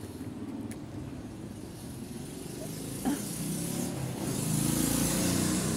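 Motor vehicle engine running close by, growing louder in the second half as it passes and easing off near the end. A single short click about halfway through.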